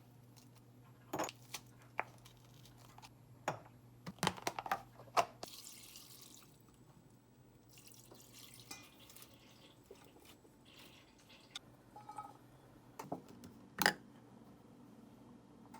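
Kitchen prep at a sink: scattered clinks and knocks of dishes and utensils, with two short runs of tap water about six and eight seconds in.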